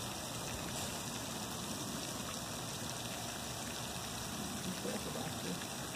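Steady hiss of light rain falling.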